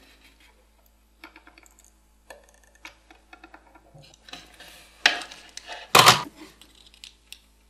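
Light metallic clicks and clatter of small tools and electronic components being handled on a workbench, with two louder sharp clacks about five and six seconds in.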